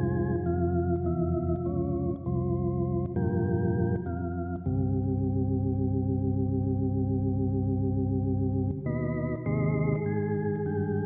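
Background organ music: a slow melody of held notes with a slight waver, resting on one long sustained chord for about four seconds in the middle before the notes move on again.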